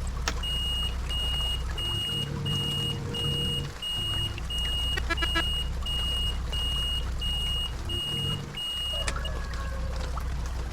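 Coach bus engine running with a steady low hum that dips briefly twice, under a high electronic beep repeating about twice a second that stops near the end.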